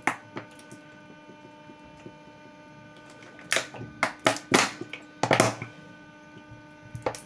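Cooking oil poured from a plastic bottle into a stainless steel pot: a short click, then a handful of irregular glugs and crackles from the bottle, mostly in the second half, over a faint steady hum.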